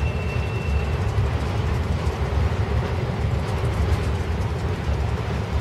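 Intermodal freight train of flatcars carrying highway trailers rolling past at steady speed: a continuous low rumble of steel wheels on rail. A thin high tone sounds briefly in the first second.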